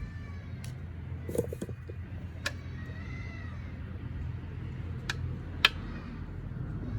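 A few sharp metallic clicks and clinks of hand tools and bolts as a dirt bike is taken apart, the loudest near the end, over a steady low hum.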